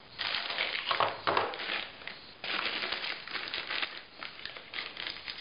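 Thin plastic wrapping crinkling and rustling in irregular bursts as hands pull a power cord and a laptop power adapter out of their bags, with a short pause about two seconds in.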